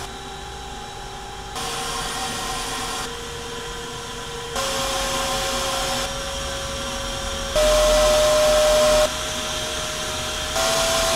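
CPAP blower on a VzBoT 330 3D printer running, a rush of air with a steady whine that steps up in pitch every second and a half or so as its power is raised. It turns alternately louder and quieter as the sound cuts between the bare CPAP mount and the plaster-filled CPAP muffler, and is loudest about two-thirds of the way through.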